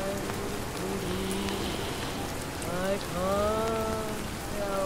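Steady rain falling and pattering, with a muffled old jazz recording underneath: a crooning voice holding long notes.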